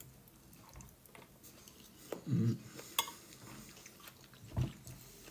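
A metal fork clinking and scraping against a bowl while eating gnocchi, quiet, with one sharp clink about three seconds in and a couple of soft low knocks.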